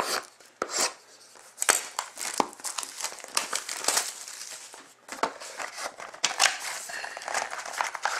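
Cellophane shrink-wrap crinkling and tearing as a sealed Crown Royale hockey card box is unwrapped by hand and its cardboard lid opened: a run of irregular crackles and rustles.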